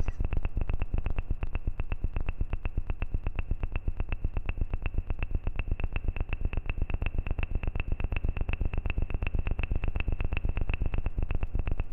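Electronic music built on a fast, even pulse: each beat a deep thump with a high bleeping tone on top, repeating steadily.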